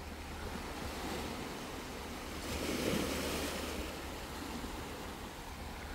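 Small sea waves washing onto a pebble and rock beach, a steady surf hiss that swells for about a second near the middle. A low wind rumble on the microphone runs underneath.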